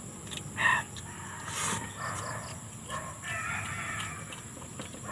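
Chickens clucking and a rooster crowing, a few separate calls with the loudest about a second in, over soft clicks and smacks of eating by hand.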